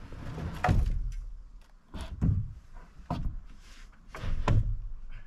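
Dull, heavy wooden thumps as a green-lumber stud wall is knocked and nudged into position on a wooden floor: about five separate knocks, roughly a second apart, some in quick pairs.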